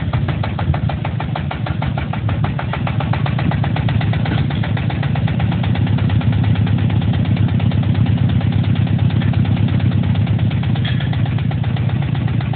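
HXING HX26A-1 hammer pile driver running: engine noise under a rapid, even train of knocks from the hammer, a little louder from about five seconds in.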